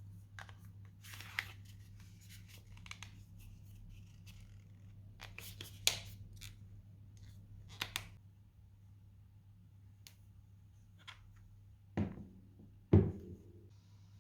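Smartphone packaging being handled: scattered light clicks, scrapes and rustles, then two dull thuds near the end as things are set down, the second the loudest.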